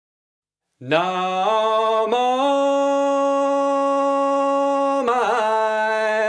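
A man's voice singing unaccompanied, coming in about a second in with a slide up into long held notes that step up in pitch, and a wavering turn near the end.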